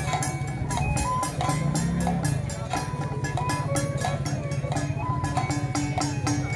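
Taiwanese temple-festival music: a fast, steady beat of drums and cymbals under a high melody line that steps from note to note.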